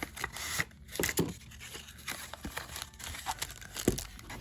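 Packaging being handled and torn open by hand: rustling and tearing with scattered small clicks, and one sharp knock a little before the end.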